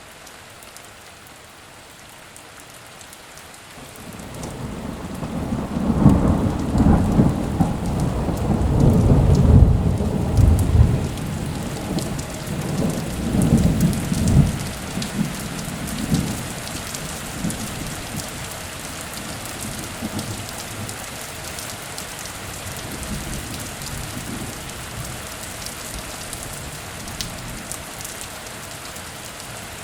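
Thunderstorm: steady heavy rain hissing throughout, with a long rolling rumble of thunder that builds about four seconds in, peaks between about six and eleven seconds with a further swell near fourteen seconds, then fades, leaving the rain alone.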